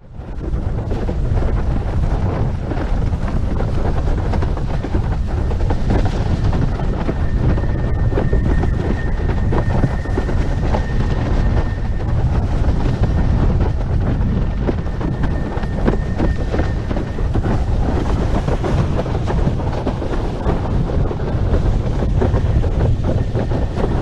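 Wind buffeting the microphone over the rush of water under a Starboard iSonic 145 windsurf board planing at speed, about 20 knots. A thin, steady high whistle from the board comes in about seven seconds in and fades out about ten seconds later.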